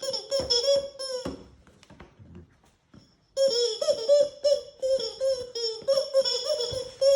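Puppy chewing a squeaky shark toy, setting off quick runs of squeaks from its squeaker. The squeaking stops for about two seconds, leaving only faint soft rustles, then starts again about three seconds in and runs on rapidly.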